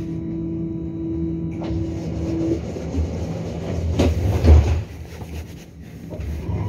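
Tram standing at a stop with its equipment humming steadily: a steady door-closing warning tone sounds for a few seconds and stops. About four seconds in the sliding doors shut with a sharp knock and a heavy thud.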